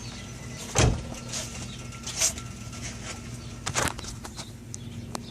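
2008 Nissan Titan's V8 engine idling steadily, with a few separate sharp knocks and clicks over it, the loudest about a second in. The owner is chasing a rattle that he puts down either to a loose exhaust heat shield or to a broken catalytic converter.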